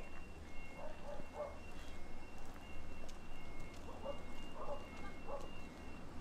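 Faint electronic beeping: short steady beeps at two alternating pitches, repeating evenly about twice a second. Over it come a few short, low clucking calls, about a second in and again about four to five seconds in.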